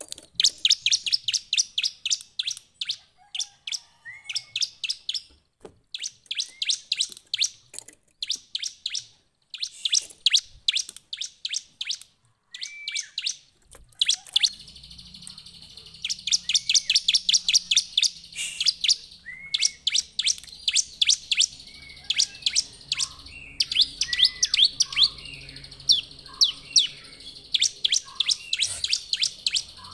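Bar-winged prinia (ciblek) singing vigorously: fast runs of sharp, high chirps in bursts of a few seconds with brief pauses between them. A faint steady background hum joins about halfway through.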